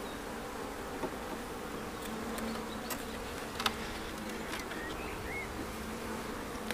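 Honeybees buzzing in a steady hum around an opened hive, with a few faint clicks.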